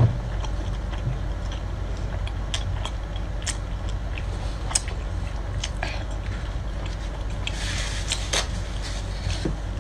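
Close-up mouth sounds of eating: wet chewing and lip-smacking clicks scattered throughout, with a short slurp near the end, over a steady low hum.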